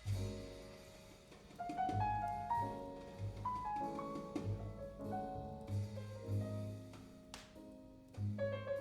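Jazz piano trio recording played back over Sound Lab G9-7C electrostatic loudspeakers and heard in the room: a piano line of separate notes over a double bass, with one sharp click or hit near the end.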